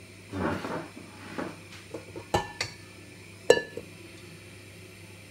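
Metal kitchenware being handled: a brief scraping rustle, then three sharp metallic clinks, the last the loudest and ringing briefly.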